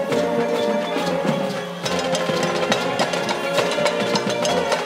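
High school marching band playing on the march: brass (trombones, sousaphones, trumpets) sounding held notes over sharp percussion hits. The band eases off briefly a little under two seconds in, then comes back in full.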